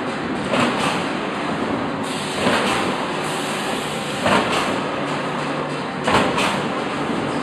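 Steel coil-processing line running as sheet steel unwinds from the coil through its rollers: a steady mechanical rushing noise that swells louder about every two seconds, four times here.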